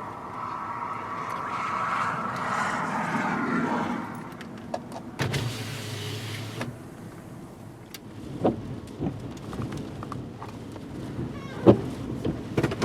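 Inside a car, an electric power window motor runs for about a second and a half, about five seconds in, followed by scattered knocks and clicks. Before it, a wavering whistling tone.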